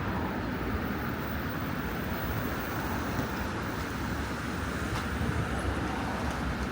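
Steady vehicle noise: a constant low rumble with hiss, without distinct events.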